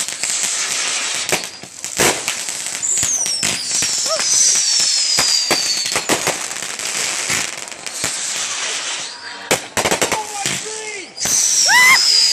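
Consumer fireworks going off in a rapid, irregular string of bangs and crackles. Twice a high whistle falls in pitch over a couple of seconds.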